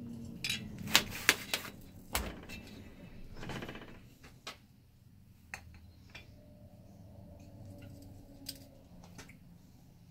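Metal clinks and knocks from handling a small two-stroke engine's aluminium case and a hand tool on a workbench: two sharp clinks about a second in, a dull thump about two seconds in, a brief scraping rasp, then lighter scattered clicks.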